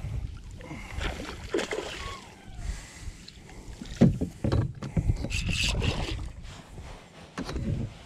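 Knocks and rattles of a landing net and its handle against a plastic kayak hull, the loudest a sharp knock about four seconds in, with water splashing around five to six seconds in as a hooked redfish thrashes beside the kayak.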